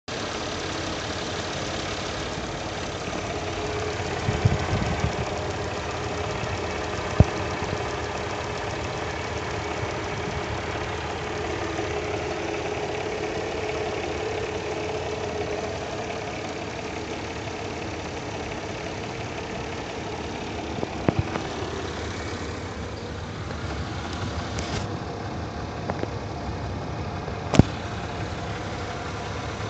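Mercedes-Benz M112 V6 engine running steadily with a dull knock, not a ticking, that the owner cannot place and calls a puzzling rattle. A few sharp clicks stand out, about 7, 21 and 27 seconds in.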